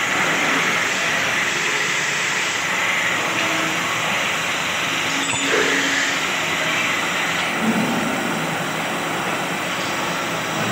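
Belt-driven electric wood lathe running while a hand-held turning tool cuts into a spinning wooden bowl blank: a steady scraping, rushing noise, with one sharp click about five seconds in.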